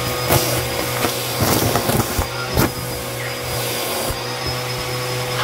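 Bissell Helix vacuum running steadily through its hose tool as it sucks up carpet debris. Crunchy clicks and crackles come irregularly throughout as confetti and small plastic bits are pulled up the hose.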